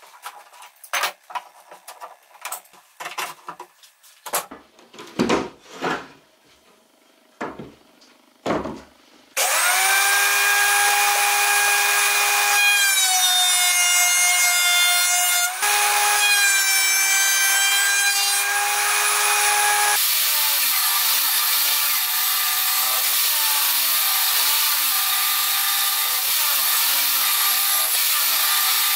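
Metal bar clamps knocking and clinking as they are set and tightened on a glued-up pine panel. About nine seconds in, a benchtop thickness planer starts with a loud whine; its pitch sags while a pine board feeds through under load, then recovers. In the last third a table saw rips pine with a steady noise and a low wavering hum.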